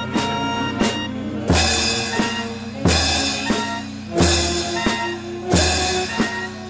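A street band playing held notes, with a bass drum and crash cymbals struck together on a heavy beat about every second and a half, starting about a second and a half in after lighter strokes.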